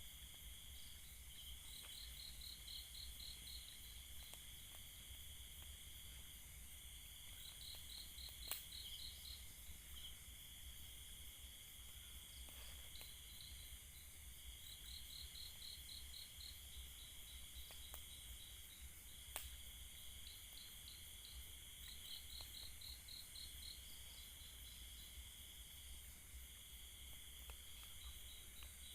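Faint chorus of crickets and other insects: a steady high trill that breaks off and resumes every few seconds, with repeated groups of rapid pulsed chirps just above it. Two sharp clicks stand out, about a third of the way in and again past the middle.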